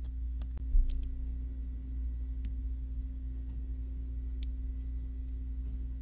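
Steady low electrical hum with a faint steady higher tone, and a few faint ticks scattered through.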